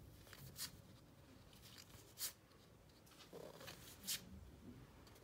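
Baseball trading cards being slid off one another one by one as a pack is looked through: a few brief, soft swishes.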